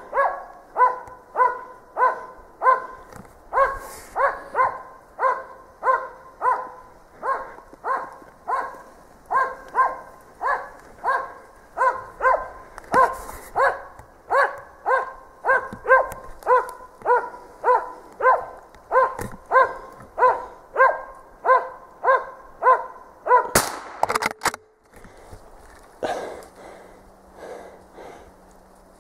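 Moose-hunting dog barking steadily at a moose it is holding at bay, about two barks a second. About two-thirds of the way through, two loud sharp sounds come, and the barking stops.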